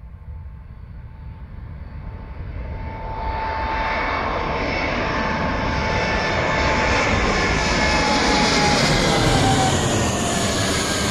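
Jet airliner's engines at takeoff power, growing louder over the first few seconds and then holding loud and steady, with a high whine that slowly falls in pitch as the plane passes.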